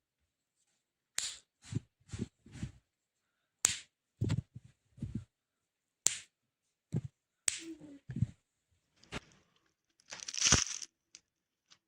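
Bone-breaking sound effect: a sharp crack followed by two or three quick crunches, repeated about four times, ending with a longer, louder crunch near the end.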